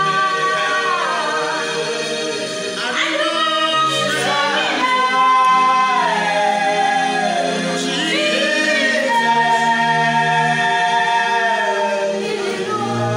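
Several voices singing a slow Christian worship song, holding long notes that slide down between pitches.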